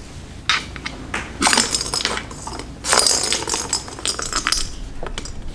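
Plastic ball with a bell inside rattling and jingling around a cat's circular track toy as a kitten bats it. It comes in two spells, the second longer, with a few light knocks between.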